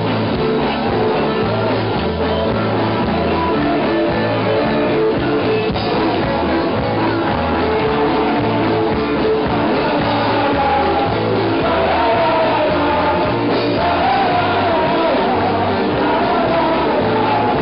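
Live band playing loud psychobilly-punk rock, with a steady driving beat in the bass and drums and a voice singing over it, the singing standing out more from about twelve seconds in.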